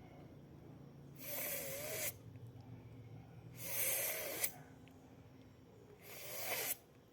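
A woman sustaining the voiceless 'f' sound, teeth on the lower lip, three times, each a breathy hiss lasting just under a second with short pauses between.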